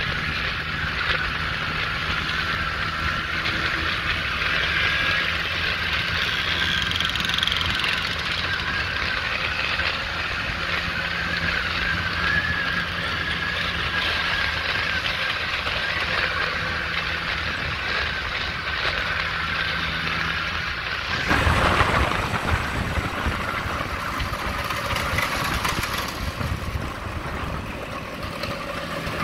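Scooter engines running steadily at cruising speed, heard from a moving scooter in a group ride. About two-thirds of the way through there is a brief louder rush of noise, and the engine sound changes after it.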